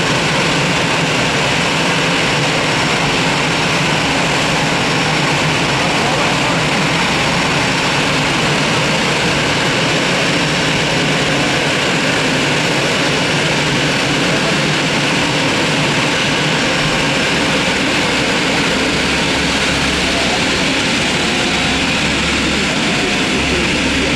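Jet airliner engines running: a loud, even rush of engine noise that holds steady with no rise or fall.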